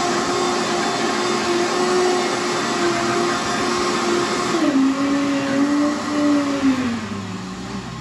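Vitamix blender running at high speed, blending water and carrageenan, its motor giving a steady whine. A little under five seconds in, the pitch drops a step; near the end it slides lower and fades as the motor slows down.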